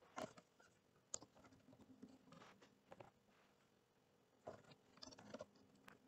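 Faint typing on a computer keyboard with mouse clicks: short scattered clusters of keystrokes as words are entered.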